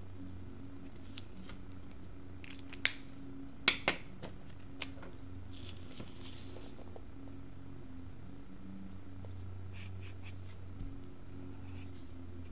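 Felt-tip markers working on paper while colouring in, with faint scratchy strokes. Three sharp plastic clicks about three to four seconds in are the loudest sounds. A low steady hum sits underneath.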